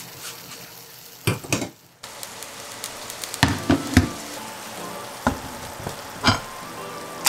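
Food sizzling steadily on a hot iron sizzle plate of diced beef, onions and bean sprouts, louder from about two seconds in, with several sharp knocks as the plate is handled on its wooden board.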